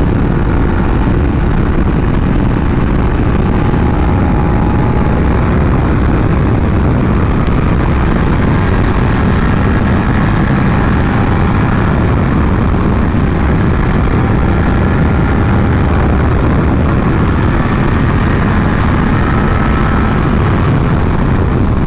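2019 Suzuki SV650X's V-twin engine with a Yoshimura exhaust running steadily at speed, mixed with the rush of wind over the rider's microphone.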